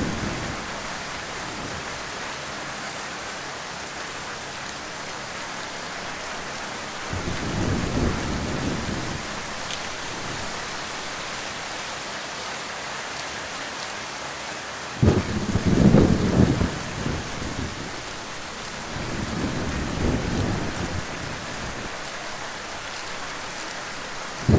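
Heavy rain falling steadily, with low rolls of thunder: one about seven seconds in, a louder one that starts suddenly at about fifteen seconds, and a softer one near twenty seconds.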